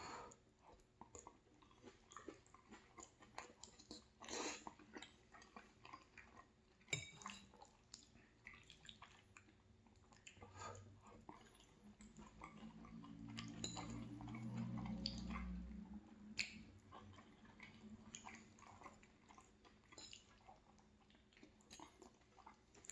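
Faint chewing and mouth sounds of a person eating orecchiette pasta with sausage and vegetables in tomato sauce, with scattered small clicks. A low rumble swells and fades in the middle.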